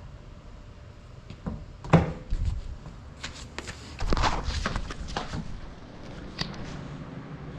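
Handling noise of a crashed FPV drone lying on the floor, its motors silent: a sharp knock about two seconds in, then rustling and clicks as it is picked up by hand.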